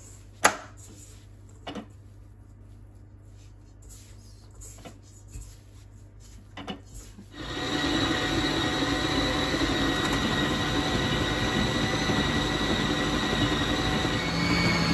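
A few sharp clicks and knocks as the stand mixer's head is handled and lowered, then about seven seconds in its electric motor starts and runs steadily with a whine, the flat beater mixing butter and icing sugar. It gets a little louder near the end.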